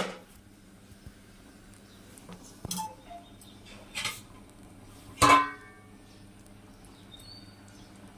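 A metal spoon or ladle clinking against a cooking pan three times over several seconds, the last knock the loudest and ringing briefly, over a faint low hum.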